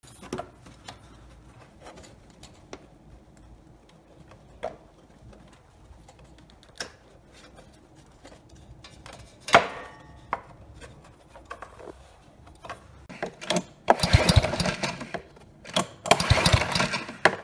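Recoil starter of a Kohler Courage XT-7 engine pulled twice, each pull about a second of rapid chattering as the engine cranks over, during a spark check with an inline spark tester on the plug lead. Before the pulls there are scattered clicks and knocks from handling the plug lead and fitting the tester, the sharpest about two thirds of the way in.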